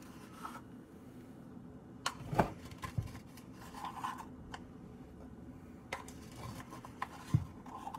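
Small metal measuring spoon scooping baking powder out of a plastic tub: soft scraping with a few light clicks and taps of the spoon against the container.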